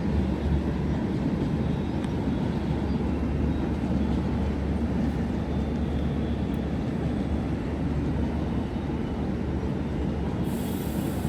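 Mumbai suburban local train running through the station: a steady low rumble with no distinct clacks or horn.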